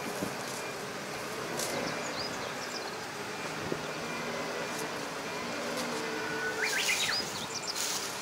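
Farm tractor's diesel engine running steadily as the tractor moves slowly along a dirt track. Birds chirp briefly near the end.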